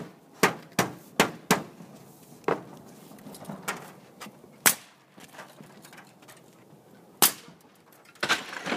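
Sharp cracks of nails being driven to fasten aluminum Rustic Shingle metal roof panels and their clips: four in quick succession in the first second and a half, then single cracks every couple of seconds, and a short cluster near the end.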